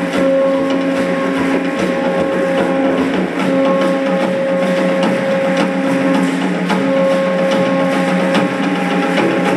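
Accompaniment to an Aztec-style dance: a held, horn-like drone sounds in long notes of about two seconds each with short breaks between, over continuous rattling and clicking.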